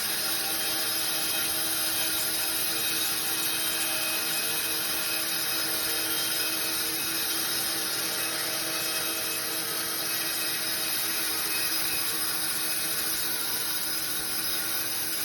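Sawmill saw cutting through timber: a steady mechanical hum of several held tones under a bright, even hiss.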